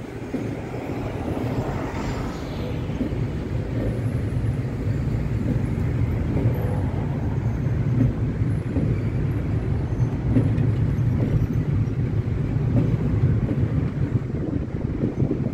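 Freight train of covered sliding-wall wagons rolling past at close range: a steady low rumble of wheels on rail.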